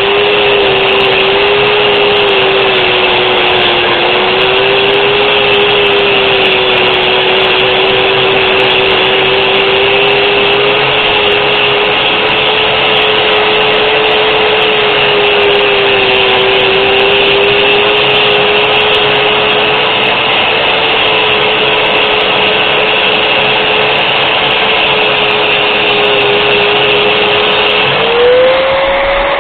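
Warrior 4.5-inch angle grinder running loud and steady while grinding, its motor whine wavering slightly with the load. Near the end the pitch rises as the motor speeds up, the sign of the load coming off.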